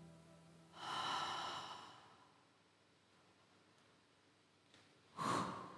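Two short, audible breaths like sighs or gasps, one about a second in and one near the end, with only faint hiss between them.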